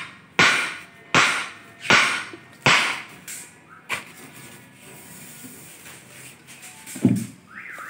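A digging bar jabbed down into a narrow hole in hard, stony soil. Four sharp strikes come about one every three-quarters of a second, then two lighter ones, and a duller thud near the end.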